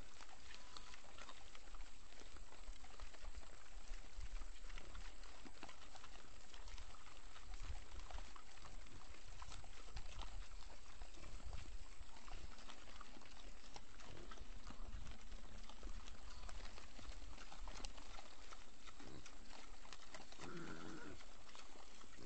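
Wild hogs milling and feeding in a corral trap, picked up by a security camera's microphone: a steady background hiss with many small scattered clicks and rustles, and one short animal call near the end.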